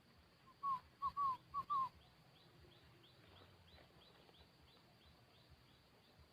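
Spotted dove cooing one short phrase of low, arched coos, strongest in the first two seconds. A faint high chirp then repeats about three times a second.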